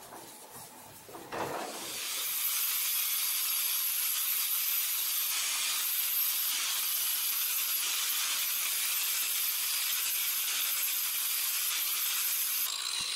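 Electric angle grinder with a flap disc sanding the end grain of a hinoki (Japanese cypress) mallet head: a steady high-pitched whine with the hiss of abrasive on wood, starting about two seconds in.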